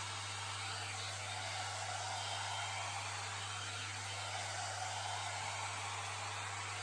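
Hot-air hair dryer and volumizer brush running steadily, a constant rush of blown air with a low hum underneath.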